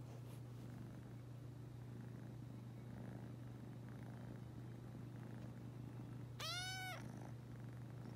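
A three-month-old grey tabby kitten purring steadily, with one short meow that rises and falls about six and a half seconds in.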